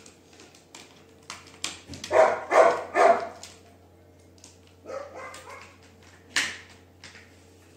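A dog barking: three loud barks in quick succession about two seconds in, a few softer ones near the five-second mark, then a sharp click.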